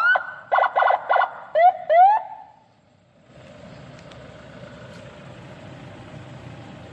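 Senken CJB100BD electronic siren blipped in short bursts: rising whoops and a quick triple stutter of tones, stopping a little over two seconds in. After a brief pause, the Toyota Fortuner's engine idles steadily.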